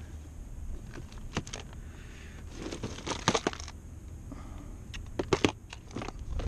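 Plastic tackle boxes clicking and rattling as they are handled and searched through, in scattered short clatters with a cluster of sharper clicks around the middle and again near the end.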